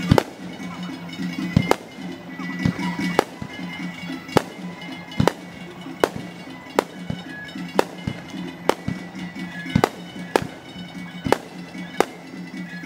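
Aerial fireworks shells bursting one after another in sharp bangs, about one a second, sped up to double speed. Music plays steadily underneath.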